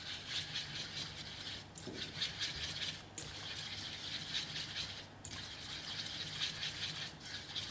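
Flat Scandinavian-style whisk scraping around a stainless steel saucepan, whisking cold butter into a beurre blanc as the sauce emulsifies. A fast, continuous metal-on-metal scratching with a few brief pauses.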